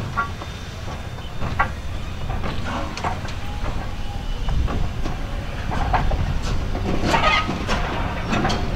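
Broad-gauge heritage steam train running on the rails: a steady low rumble, with irregular clicks and creaks from the wheels and carriages that come thickest near the end.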